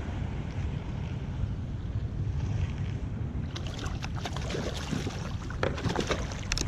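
Wind buffeting the microphone in a steady low rumble, with water lapping at a fishing kayak. In the second half come several short clicks and knocks from gear being handled on board.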